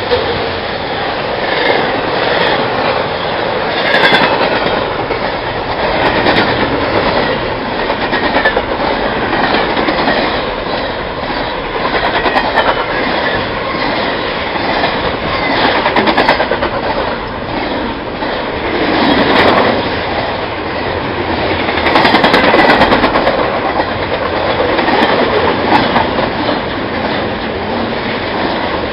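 Double-stack container freight train passing close by: steel wheels clattering over the rails of the loaded well cars in a continuous loud clickety-clack. The sound swells louder several times as the cars go by.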